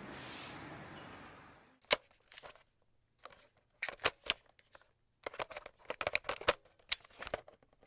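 Footsteps in slippers on paving stones: irregular sharp clicks and scuffs, sparse at first and then quicker, after a short stretch of steady room hiss.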